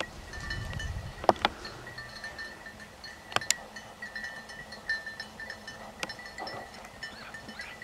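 Small bells ringing on and off at one steady pitch, with a few sharp cracks about a second in and again after about three seconds.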